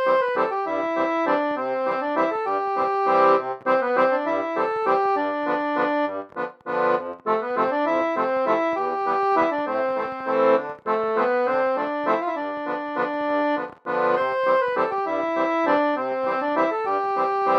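Instrumental music: a quick melody over held chords, broken by a few short pauses.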